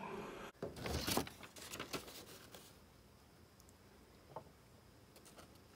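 A sheet of lined notebook paper rustling and crackling as it is handled close to the microphone, for about two seconds, then faint room tone with a single small tick.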